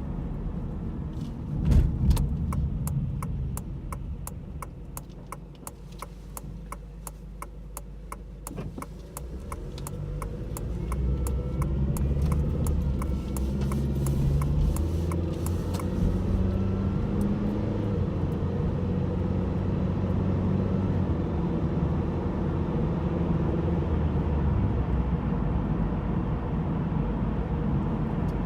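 Inside the cabin of a 2010 Honda Civic LX Coupe, the 1.8-litre four-cylinder engine pulls away and accelerates, with a thin whine rising in pitch along with the revs, which the owner suspects comes from the power steering pump. A thump comes about two seconds in, and a regular ticking runs through the first half before the engine settles into a steady drone at speed.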